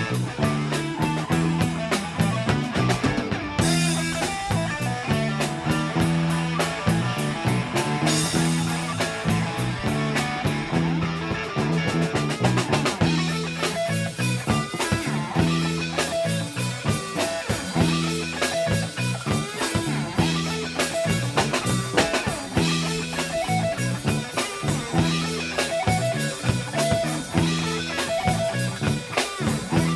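Live blues band playing an instrumental break: electric guitar over a low riff that repeats about every two seconds, with drum kit.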